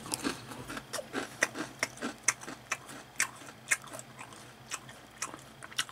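A person crunching and chewing a thin, crisp fried hanchi (squid) snack, with short sharp crunches about three times a second.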